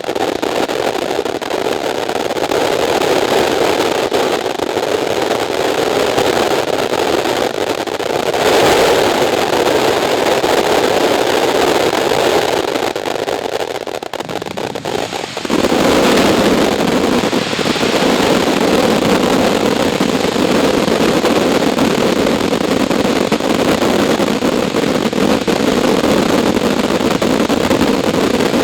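Consumer fireworks going off in a continuous, dense rush of sound with no separate bangs standing out. The sound dips briefly about fourteen seconds in, then carries on at a lower pitch.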